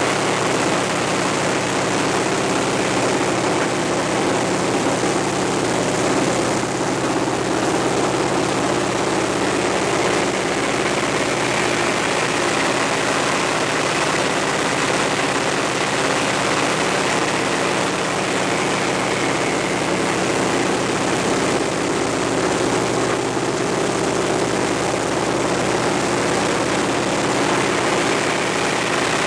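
AT-6 Texan's Pratt & Whitney R-1340 radial engine and propeller heard from inside the cockpit, running steadily under power through aerobatic manoeuvres, with a faint whine that drifts slightly in pitch.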